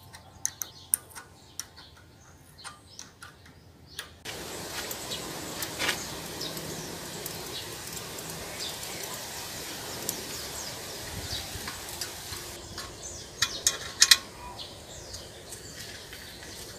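Sharp metallic clicks and taps of a wrench and bicycle derailleur parts being handled and tightened. A steady hiss of outdoor background noise with faint bird chirps comes in about four seconds in and drops away a few seconds before the end, followed by a few loud clicks.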